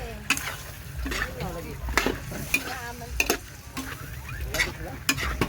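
Food being stirred in a metal cooking pan, the utensil clinking and scraping against the pan several times at irregular intervals over a steady frying sizzle.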